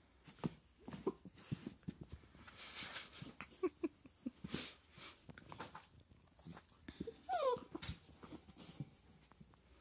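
Young Dalmatian puppy whimpering, with one short falling whine about seven seconds in, among scuffling and rustling as she moves about on carpet and is handled.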